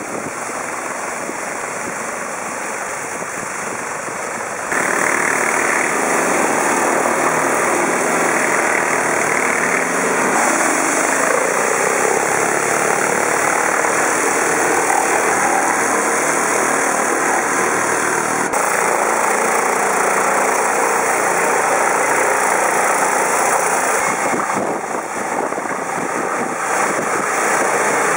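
High-pressure water from a Mosmatic Hurricane undercarriage washer's spray nozzles hissing steadily against a vehicle's underside, over a running engine. The sound jumps louder about five seconds in and drops briefly near the end.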